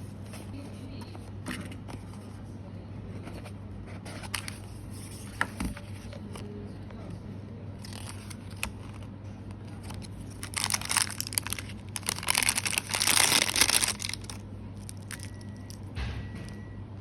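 Packaging being handled and unwrapped: a few light clicks, then about ten seconds in a few seconds of loud crinkling and tearing, over a steady low hum.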